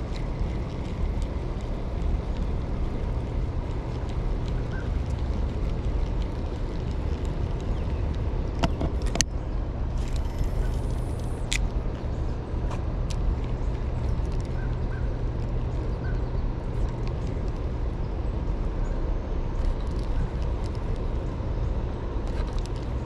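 Steady low rumble of open-water background noise, with a few sharp clicks about nine seconds in and again near twelve seconds.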